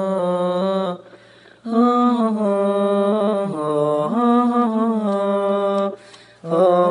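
A voice sung through the Voloco app's auto-tune harmonizer effect: held notes locked to flat pitches that step from one to the next, in three phrases with short breaks about a second in and about six seconds in.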